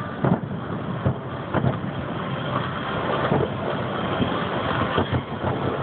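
Fireworks finale going off: an irregular run of sharp booms over a continuous low rumble.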